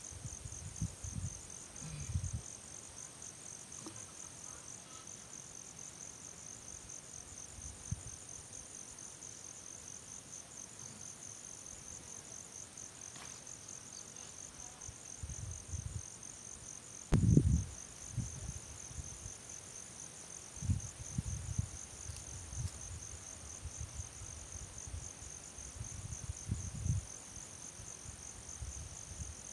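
Insects chirring steadily in a rapid, pulsing high trill, with scattered low thumps and bumps. The loudest bump comes about 17 seconds in.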